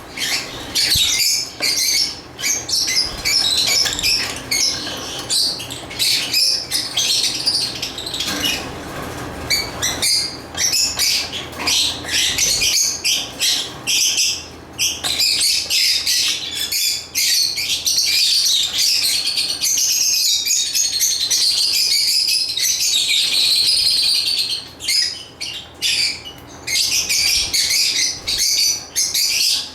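Lovebird chirping: rapid, high, overlapping chirps and squawks, with an unbroken run of chatter in the middle of the stretch.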